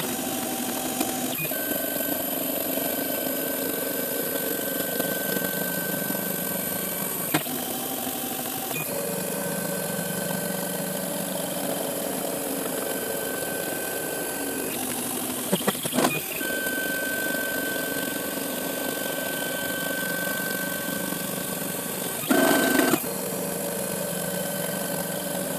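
Hobby CNC milling machine's axis motors driving the table from point to point under a dial indicator: a steady machine whine whose tones shift each time a move changes. There are a few sharp clicks about two-thirds of the way through and a short, louder burst near the end.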